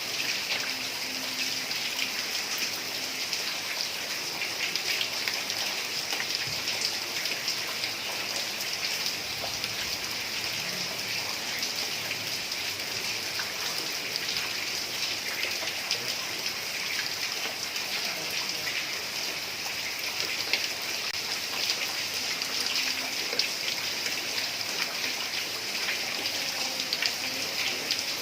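Heavy rain falling steadily on roof tiles: a dense, even patter of drops.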